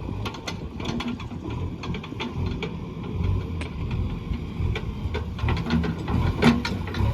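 JCB 3DX backhoe loader's diesel engine running under load, with irregular metallic clanks and rattles that come thicker near the end.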